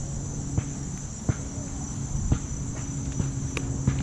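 A steady, high-pitched chorus of insects, with about half a dozen sharp clicks and taps at irregular intervals from fishing tackle being handled close by.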